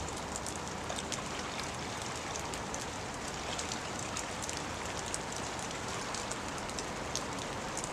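Steady rain falling, with many small sharp raindrop hits close by over an even hiss.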